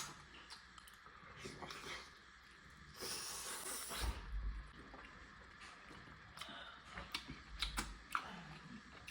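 A person eating a folded tortilla pizza close to the microphone: scattered mouth clicks and chewing, with a louder, noisier second about three seconds in.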